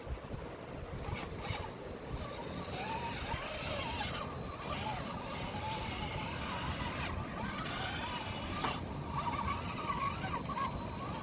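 Radio-controlled rock crawler's brushless motor and drivetrain whining as it creeps over rock, the pitch wavering up and down with the throttle, with a few knocks from the chassis or tyres on the rock.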